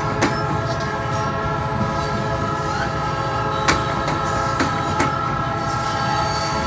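Loaded freight cars of a rock train rolling past on a grade: a steady high-pitched wheel squeal rings throughout over a low rumble, with sharp, irregularly spaced clicks from the wheels over the rail.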